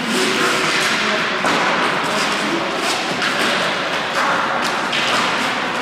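Hockey game play in a large hall: repeated thuds and knocks over a steady rush of noise.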